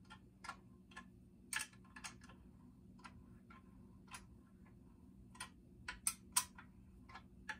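Ratchet wrench clicking in irregular single clicks as it slowly backs out the lower-unit bolts of an outboard motor, over a faint steady hum.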